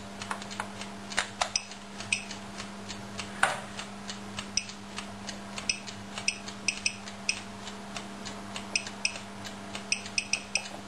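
Handheld Geiger counter clicking at irregular intervals, a few clicks a second, as it counts radiation from a uranium-glass cupboard handle. A faint steady hum lies underneath.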